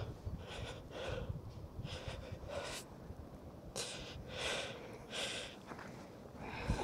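A person breathing hard in short, noisy puffs, the heavy breathing of someone straining to haul a magnet snagged on a canal bed back up by its rope.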